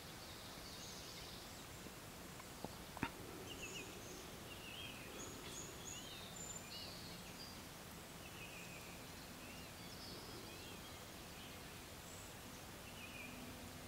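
Faint outdoor wetland ambience with scattered short, high chirps of distant small birds calling throughout. Two sharp clicks come about three seconds in.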